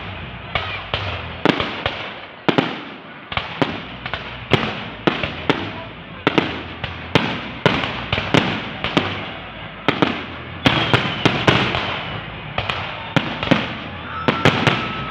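Fireworks going off in a rapid, uneven barrage of sharp bangs, about two or three a second, with crackling between them. A thin whistling tone comes in near the end.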